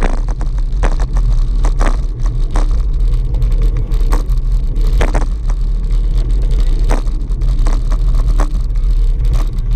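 Wind buffeting the microphone of a camera on a moving bicycle: a loud, steady low rumble. Short knocks and rattles are scattered irregularly through it as the bike rolls over the cracked concrete road.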